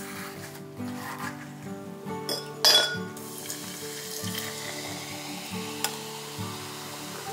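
A sharp glassy clink about three seconds in, then a steady fizzing hiss of a carbonated drink in a glass, over soft background music.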